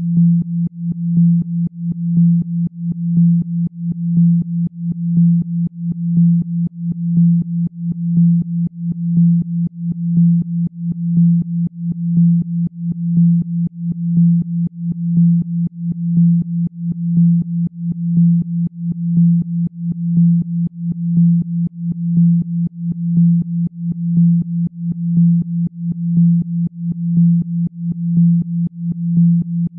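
A generated pure low tone, a Rife 'healing frequency' for spinal regeneration, held at one pitch and pulsing in loudness about once a second.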